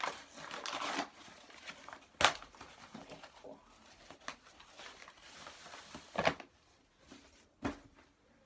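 Rustling and crinkling of packaging as a small rolled rug is unwrapped and unrolled, with three sharp crackles standing out.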